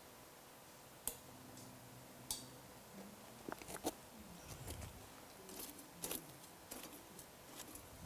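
A few sharp metallic clicks and clinks, some in quick clusters and one with a short ring after it, from a metal spatula knocking against a steel bowl of soil sample set on a gas stove.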